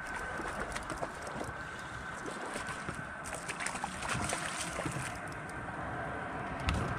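Speckled trout being reeled in on a spinning rod from an aluminium jon boat: scattered small clicks of the reel being cranked over wind and water lapping at the hull, with a faint steady high whine throughout. Louder low rumbles come in near the end as the fish is lifted to the boat.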